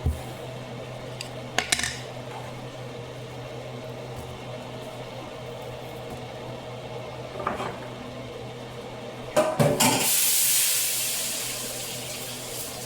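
Cookware clinks a few times, then water hits a hot pan and sizzles loudly in a hiss that fades over a couple of seconds. A steady low hum runs underneath.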